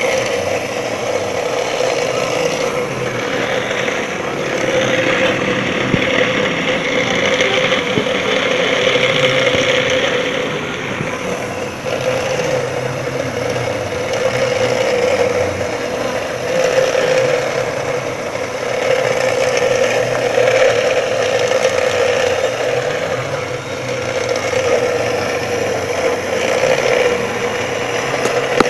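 Electric grinder running steadily with its motor hum, with stretches of harsher metal grinding that swell and ease every few seconds as the steel saw blade is pressed to the wheel to shape its teeth.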